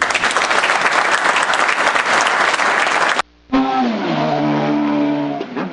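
Audience applauding, cut off abruptly about three seconds in. After a brief gap, held pitched tones like music take over and fade toward the end.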